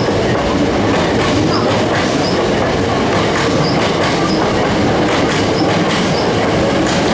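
Hankyu 8300 series electric train pulling out of the station, its cars rolling past with a steady rumble and repeated clicks of the wheels over rail joints.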